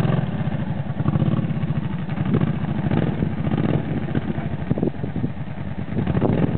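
Kawasaki Teryx Sport UTV's V-twin engine running at low speed under load as the side-by-side crawls up a steep rock outcrop, a steady drone with a slight easing about five seconds in.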